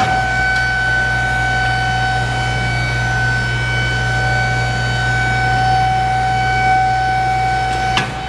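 Hydraulic pump motor of a GPI Ver-Tech M42BC vertical cardboard baler running, a steady high whine over a low hum as it drives the compactor platen, cutting off about eight seconds in.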